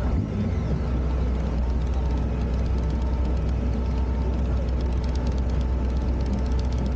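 Steady low engine hum of an idling vehicle, with no revving.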